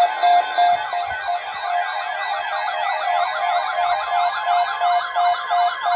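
Several electronic sirens layered together: overlapping wailing and faster yelping sweeps over a beep that repeats about twice a second.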